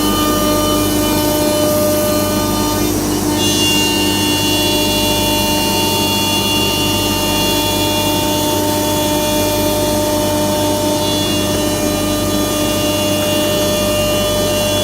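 ATC CNC router running: a steady spindle whine of several tones over machine noise. The whine changes pitch about three seconds in and again after about eleven seconds.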